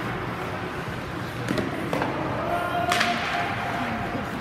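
Live ice hockey play: a few sharp clacks of sticks and puck, about three in all with the loudest near three seconds in, over the steady hum of the rink.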